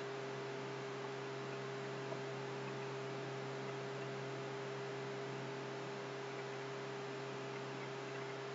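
Steady electrical hum over a constant hiss, the recording's background noise.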